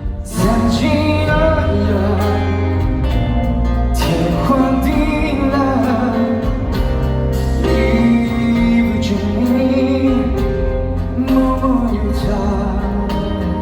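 Live concert audio of a male Mandopop singer singing over a full backing band with heavy bass.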